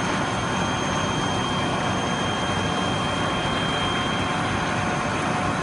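Colgar CNC machine tool running: a steady mechanical noise with a constant high whine over it.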